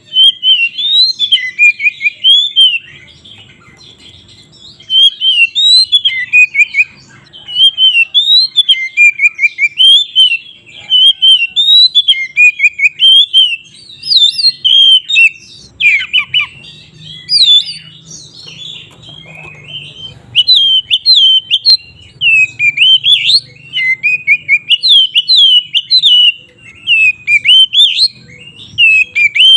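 Oriental magpie-robin (kacer) singing loudly in bursts of fast, varied whistled notes that glide up and down, with short pauses between phrases.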